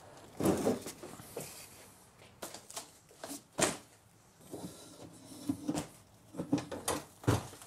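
Irregular knocks, clicks and rustles of hands-on work: flattened cardboard laid on a concrete floor, footsteps, and the plastic rear bumper cover being worked loose from the car body. The sharpest knocks come about three and a half seconds in and again near the end.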